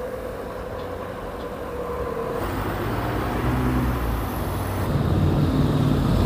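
Road traffic: a steady hum of passing vehicles, with a motor vehicle's engine growing louder through the second half.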